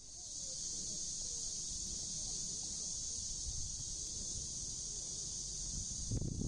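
A loud chorus of crickets chirping: a steady, high-pitched, unbroken trill. About six seconds in, a brief low rumble cuts across it.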